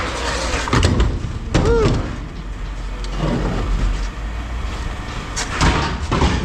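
Scrap metal clanking and banging in several sharp knocks over a steady machine engine rumble, with a brief metallic ring or squeal.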